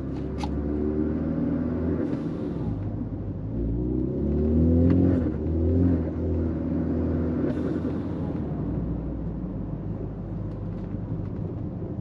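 Cabin noise inside a Ford Fusion on a test drive: the engine and road rumble as the car pulls away, the engine note rising several times under acceleration. The rear differential, just repaired, runs without a strong bearing drone; only a slight noise remains.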